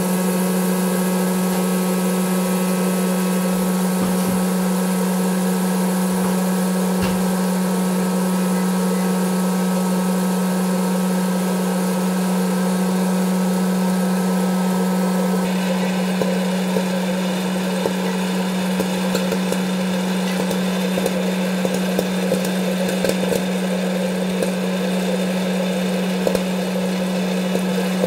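Hot-air popcorn maker running with a steady fan-motor hum. About halfway through, small sharp pops start coming over the hum as the kernels begin popping.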